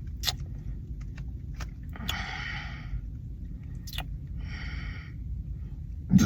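Heavy breathing while gulping soda: two long breaths of about a second each, with a few sharp clicks between them. Just before the end a loud, low burp starts.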